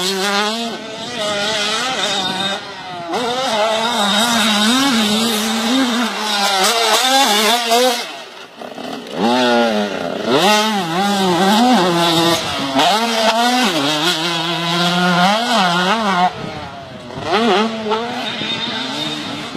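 KTM 150 two-stroke motocross bike engine revving hard, its pitch rising and falling over and over as the rider works the throttle and gears, with brief drops off the throttle about eight and sixteen seconds in.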